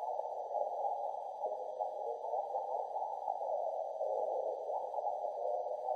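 Garbled radio reception from a ham radio receiver held on one frequency, played in reverse with reverb: a steady, thin and muffled warble with no clear words.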